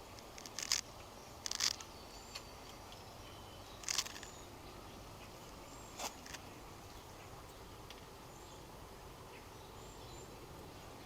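Metal parts of a hitch-mounted bike rack clinking as they are handled, a few short light clinks in the first six seconds. Faint bird chirps are in the background.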